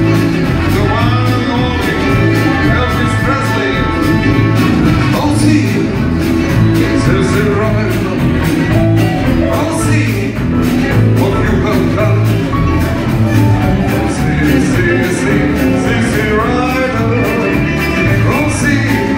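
Live rock band playing: electric guitar, bass guitar, drum kit and keyboards, with a man singing lead over a steady drum beat.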